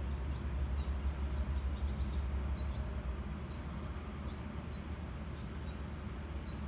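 Outdoor background: a steady low hum with a few faint, short high chirps scattered through it.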